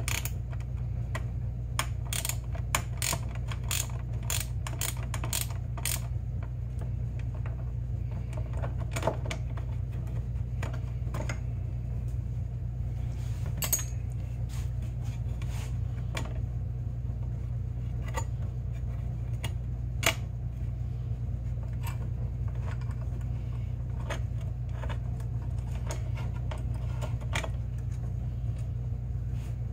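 Ratchet wrench clicking in quick runs as a bolt is turned, then scattered light clicks and taps for the rest of the time, over a steady low hum.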